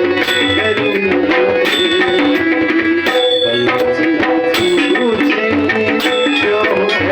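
Tabla accompaniment of a devotional bhajan: a steady cycle of sharp right-hand strokes and deep left-hand drum hits under a wavering melody line.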